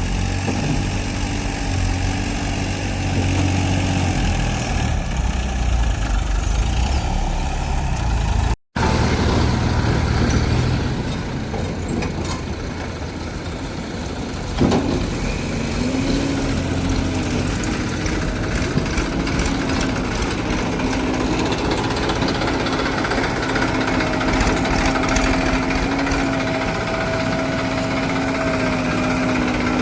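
Heavy vehicle diesel engine running steadily. It breaks off for an instant about nine seconds in, there is a sharp knock about fifteen seconds in, and after that it holds a steady drone.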